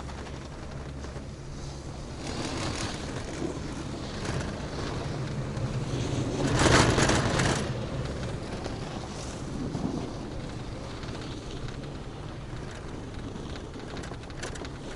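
Taiheiyo Sakudo high-speed quad chairlift running: a steady low mechanical hum with wind noise. A louder rumbling rush swells for about a second near the middle, with smaller swells before and after.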